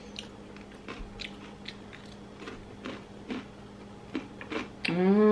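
Close-up chewing of crispy fried fast food, with a crunch about every half second.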